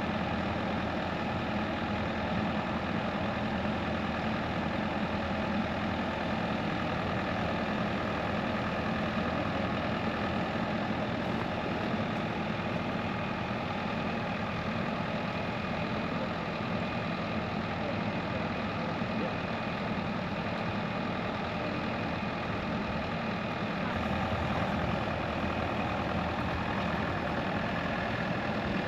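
Bobcat E55 compact excavator's diesel engine running steadily at one speed while the machine holds its load.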